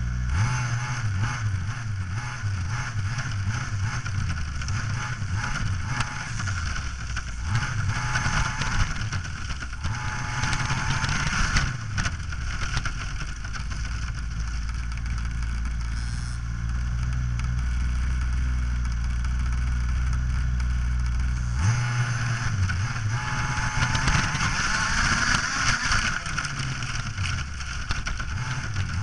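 Small engine of a radio-controlled model car, running continuously and revving up and down as it drives over grass.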